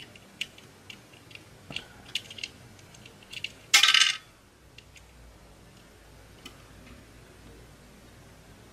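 Small clicks and taps of needle-nose pliers against hard plastic as the pieces of a soap dispenser's peristaltic pump are prised apart, with one louder, brief clatter about four seconds in.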